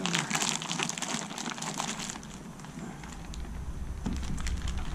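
Plastic wrapping crinkling and crackling as a wrapped exhaust pipe is handled and unwrapped, densest in the first two seconds and thinning after. A low rumble comes in during the second half.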